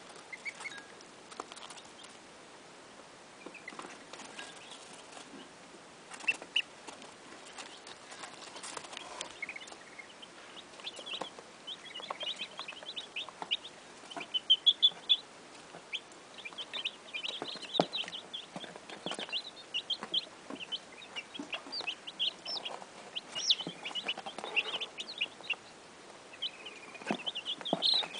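Goslings give a few scattered peeps at first; from about ten seconds in, a brood of Cornish chicks peeps steadily, many short high cheeps overlapping.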